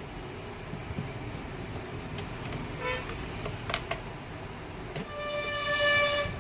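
A steady, horn-like pitched tone lasting about a second and a half near the end, over a low background hum, with a few faint clicks and a brief shorter tone earlier.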